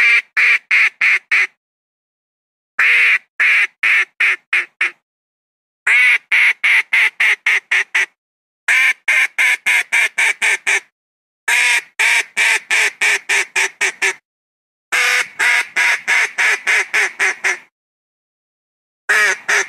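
Philippine duck (papa) quacking in repeated runs of five to ten loud quacks, about four a second, with the quacks growing shorter toward the end of each run. A run starts about every three seconds, six in all and a seventh near the end.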